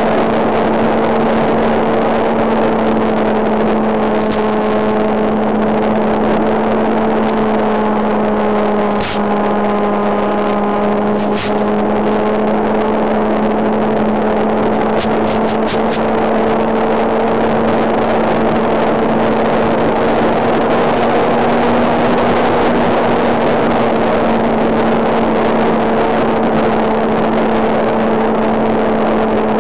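RC model Spitfire's engine running steadily in flight, a constant drone whose pitch drifts only slightly, with a few brief sharp clicks.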